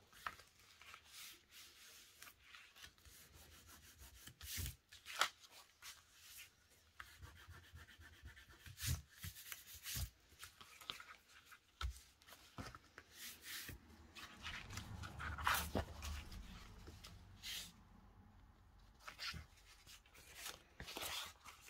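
Faint rubbing and rustling of paper and fabric journal pages pressed flat and moved about by hand, with scattered light taps.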